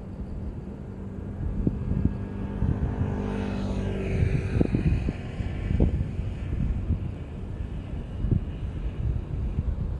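An airplane passing overhead, its engine whine sliding down in pitch about three to four seconds in as it goes by, over wind rumbling on the microphone.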